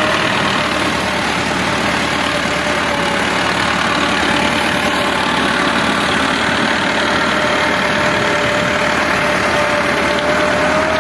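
Massey Ferguson 385 tractor's four-cylinder diesel engine running steadily under load while driving a rotavator through the soil, with a steady whine over the engine note.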